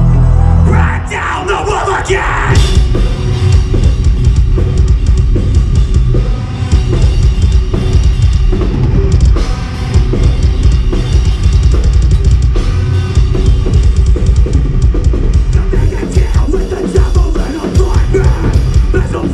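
Metalcore band playing live: a heavy metal song with distorted guitars and pounding kick drum and cymbals. A low droning intro gives way to the full band about a second in.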